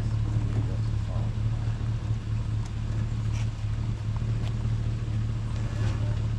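Truck driving, a steady low engine and road drone with a few faint light rattles.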